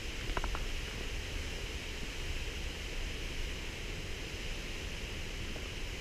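Steady rushing of a nearby waterfall, an even hiss-like roar with a low rumble beneath. Three quick faint ticks sound about half a second in.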